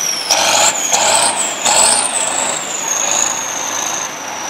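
Kirovets K-700A articulated tractor's 240 hp diesel engine working hard on a pulling run. A high whine rises and falls over it, with a few surges in the first two seconds, then the engine settles to a steadier, slightly fading note as the tractor draws away.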